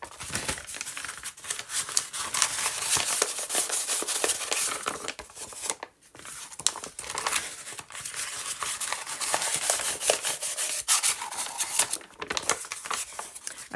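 Sheets of stiff, buckled gesso-coated paper rustling and crackling as they are lifted, flipped and shuffled by hand, with short pauses about six and twelve seconds in.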